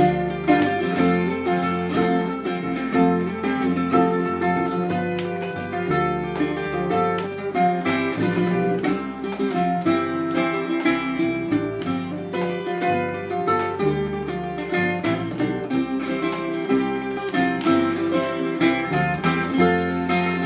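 Ten-string, all-steel-string tiple ukulele played in a run of rapid strummed chords, with a bright, ringing metallic tone.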